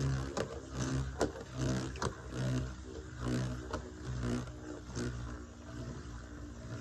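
Metal Fight Beyblade tops spinning in a plastic stadium, with a steady hum and a string of sharp clicks as they hit each other.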